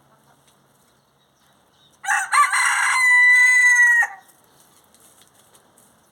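A rooster crowing once, about two seconds long: a rough opening, then a long held note that dips slightly at the end and stops.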